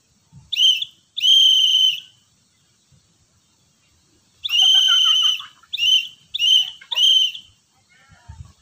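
Scout whistle blown in Morse code, each blast one steady high tone: a short blast then a long one (the letter A), then after a pause a long blast followed by three short ones (the letter B).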